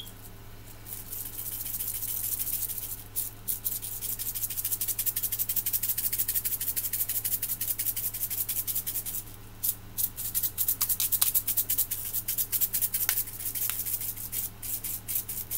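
Rainbow sprinkles rattling inside a plastic shaker container as it is shaken over a cake, a quick, dense rattle in bouts with a few short pauses.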